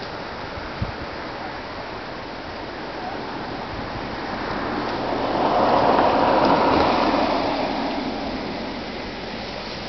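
A vehicle passing on a road, its rush of tyre and engine noise swelling to a peak about six seconds in and then fading, over a steady outdoor hiss.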